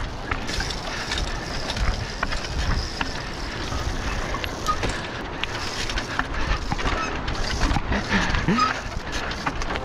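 Trials bicycle ridden over rocks, heard from a helmet camera: a rough, rumbling noise with frequent sharp clicks and knocks as the tyres, chain and frame hit the stone.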